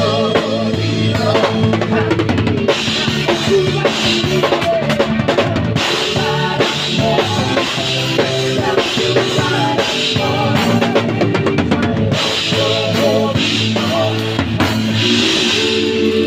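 Live band music heard close up from the drum kit: kick, snare and cymbals played over keyboard, with several stretches of cymbal wash a few seconds long.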